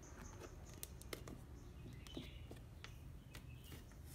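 Faint handling of a cardboard laptop box and its printed sleeve: scattered light clicks and taps as hands work the packaging.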